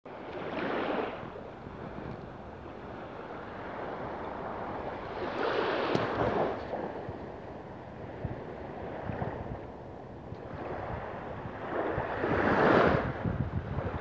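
Small sea waves lapping and washing onto the shore, swelling louder three times, with wind rumbling on the microphone.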